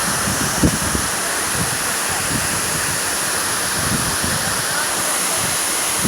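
Waterfall: a steady rush of falling water, with a few brief low thumps of wind on the microphone.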